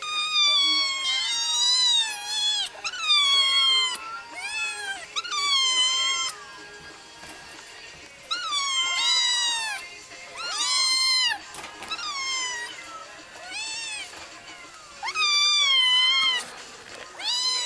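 Kittens mewing loudly and repeatedly: high-pitched cries, each rising then falling in pitch, coming in quick runs with short pauses between them.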